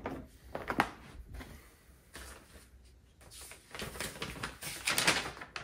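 Scattered light knocks and clicks of parts being handled during assembly, with a denser run of knocking and rustling about four to five seconds in.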